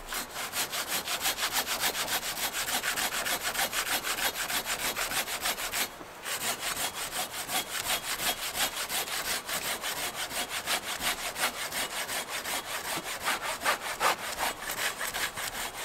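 Silky BigBoy folding pull-stroke saw with a 14-inch straight blade and medium teeth cutting through a log, in quick, even rasping strokes. There is a brief pause about six seconds in before the sawing resumes.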